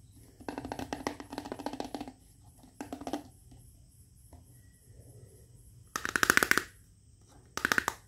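Small plastic toy kitchen pieces being handled, giving rapid clicking rattles in four short bursts; the last two are sharper and louder.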